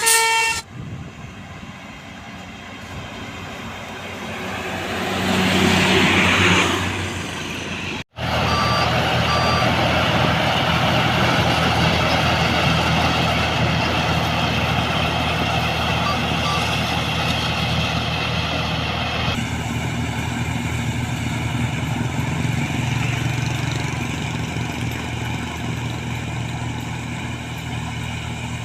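Heavy vehicle engines running steadily across spliced clips, with a louder swell about five to seven seconds in and an abrupt cut about eight seconds in. Before that, a horn's stacked tones end in the first half-second, and a few faint reversing beeps sound later.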